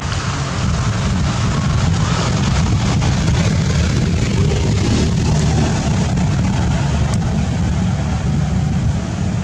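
A loud, steady low rumble with a hiss over it, starting suddenly.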